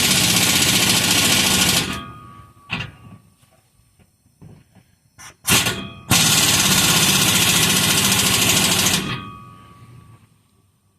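Impact wrench running down the bolts of an exhaust clamp: a long burst of hammering that stops about two seconds in, a brief blip around five and a half seconds, then another burst of about three seconds.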